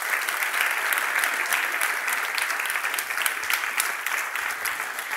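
Audience applauding: many hands clapping in a steady patter, easing slightly near the end.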